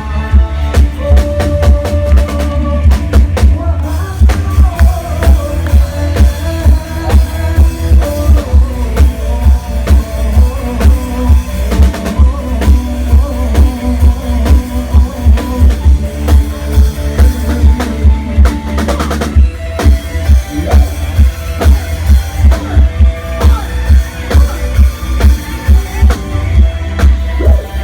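Loud music from a Thai rot hae parade sound-system truck: a heavy bass drum beat about twice a second with drum kit and a melody over it.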